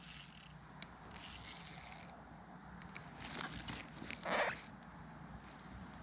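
Spinning reel being cranked in three short spells, its gears giving a steady high whir, as a hooked bluegill is reeled up through an ice-fishing hole. About four seconds in, a short louder burst of noise comes at the end of the last spell.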